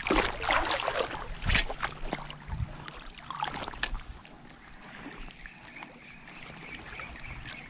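Water splashing and sloshing for the first four seconds or so. After that it is quieter, with a faint rapid ticking about four times a second.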